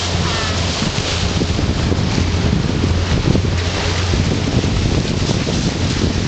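Motorboat under way: a steady low engine drone under wind buffeting the microphone and water rushing along the hull.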